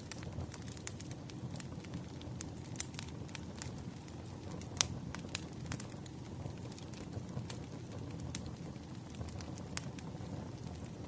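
Campfire crackling: irregular sharp pops and snaps of burning wood over a steady low hiss of the flames, one louder pop about halfway through.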